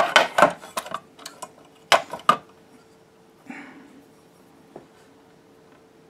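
Sharp clicks and knocks as a small cooling fan and its wire are handled against the plastic housing of a fume extractor, most of them in the first two and a half seconds. A brief hiss follows about three and a half seconds in, then one more click, over a faint steady hum.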